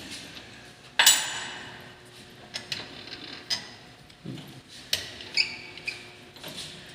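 Metal parts and hand tools knocking and clinking on a lathe. One hard metallic clank about a second in rings on briefly, followed by lighter taps and a short ringing clink a little after the middle.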